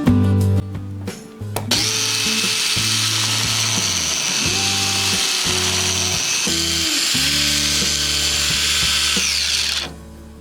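Electric hand mixer running steadily with a high whine, starting a couple of seconds in and winding down with a falling pitch near the end, over strummed guitar background music.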